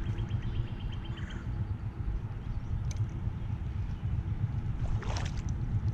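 Steady low rumble of creek water, with a fast run of light ticks in the first second and a short swishing burst about five seconds in.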